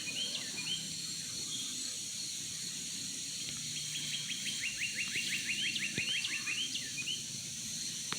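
A songbird singing a rapid trill of short, evenly spaced notes, about nine a second, that ends in a few slurred chirps; the song comes again about four seconds in. A steady high hiss of outdoor background runs under it.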